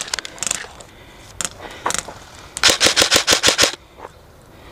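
Airsoft rifle firing a quick string of about nine shots, roughly eight a second, lasting about a second and starting about two and a half seconds in. A few single sharp knocks come before it.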